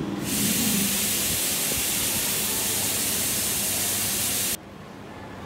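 Compressed air venting from a stationary electric local train: a loud, steady hiss that starts abruptly and cuts off suddenly about four and a half seconds in.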